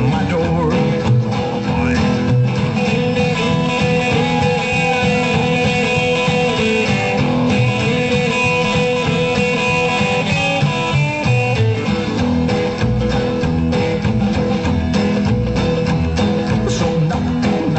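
Rockabilly song's instrumental break, led by guitar over a steady beat.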